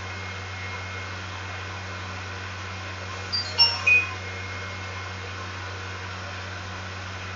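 Steady low hum and hiss of room and recording noise. About three and a half seconds in come three short, high-pitched squeaks close together.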